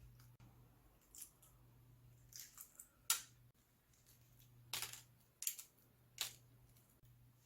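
Aluminium foil around roasted sweet potatoes or eggs crinkling in about six short, sharp bursts as it is handled.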